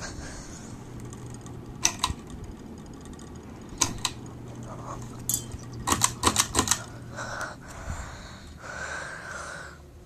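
Pull chains of a Hampton Bay ceiling fan's light kit being handled: sharp clicks of the pull-chain switch and the metal bead chain knocking against the fixture, with a quick cluster of several clicks about six seconds in. A low steady hum from the fan motor runs underneath.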